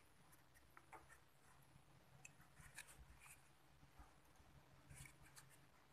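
Near silence: a few faint clicks and rustles of small parts being handled, over a faint steady low hum.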